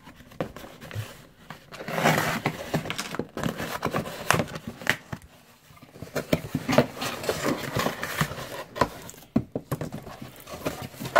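Cardboard shipping box being torn open by hand: repeated bursts of tearing and rustling cardboard, with clicks and knocks as the smaller boxes inside are handled.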